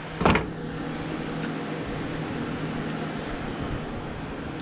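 Steady hum of an electric fan running, with one sharp click about a quarter of a second in.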